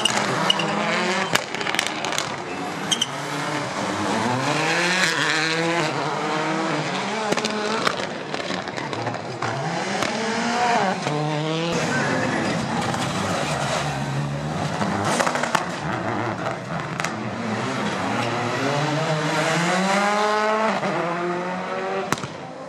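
Rally car engines at full throttle, the pitch climbing in repeated sweeps that break off at each gear change and climb again, with scattered sharp cracks and some tyre squeal.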